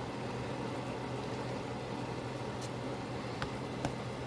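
Pot of ground beef vegetable soup simmering, a steady bubbling hiss over a low hum, with a few light clicks of the skimming spoon against the pot in the second half.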